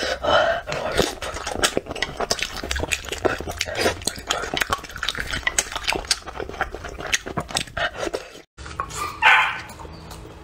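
Close-miked mukbang eating sounds: wet chewing, lip smacks and chopsticks clicking against food and bowl. Near the end comes one short, loud animal call from a pet.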